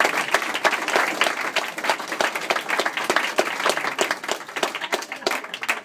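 Audience applauding, many hands clapping with a few voices mixed in, thinning out near the end.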